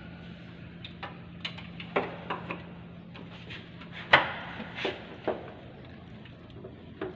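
Several short clicks and knocks from handling a dipstick and parts in an engine bay, the loudest about four seconds in, over a faint steady hum.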